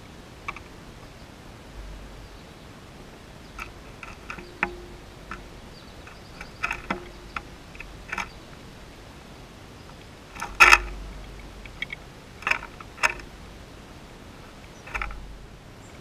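A bird moving about on a seed-strewn bird bath, heard as a scatter of short, irregular taps and clicks. The loudest comes about ten and a half seconds in.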